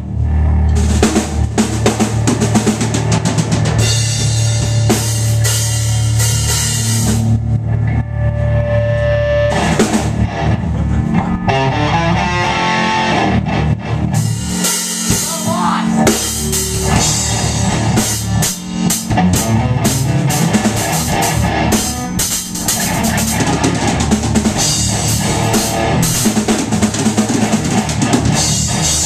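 Amateur rock band playing live: a drum kit with bass drum and cymbals is loudest, over an electric bass and a guitar played through amplifiers.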